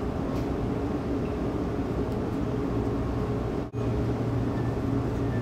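Steady low mechanical hum of room or lab ventilation, cut by a very brief gap about two thirds of the way through.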